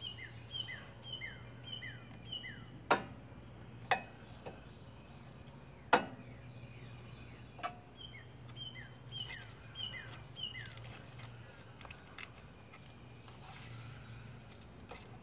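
A songbird sings runs of quick down-slurred chirps, one run at the start and another about eight seconds in. Over it come a few sharp metallic clicks from hands working on the engine's ignition coil, the loudest about three and six seconds in.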